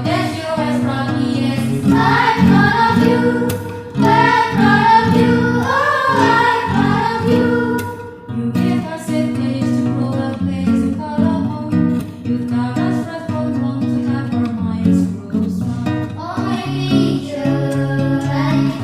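Young voices singing a song with acoustic guitar accompaniment.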